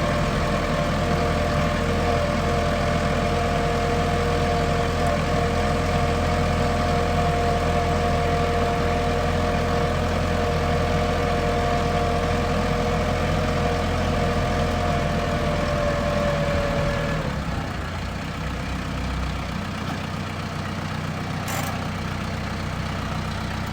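Tractor engine running steadily, with a steady higher whine over the drone. About seventeen seconds in, the whine stops and the engine runs a little quieter.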